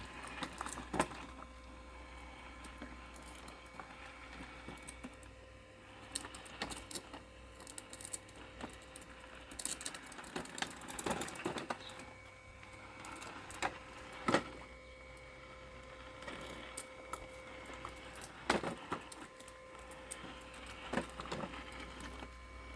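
Parkside robotic lawn mower running, its electric motors giving a steady low hum with a faint whine, while irregular clicks and knocks come as it works over obstacles in rough garden ground, a few of them louder.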